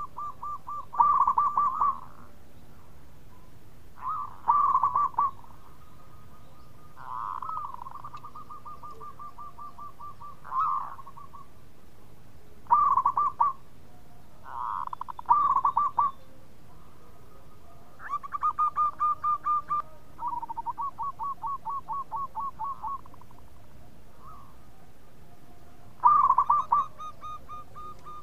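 Zebra dove cooing in repeated bouts of rapid, rolling coos every few seconds, with a longer run of quick, evenly spaced staccato notes about two thirds of the way through.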